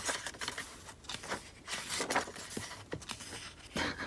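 Paper pages of a hardcover diary being turned and handled: a quick run of short, irregular papery rustles and flicks.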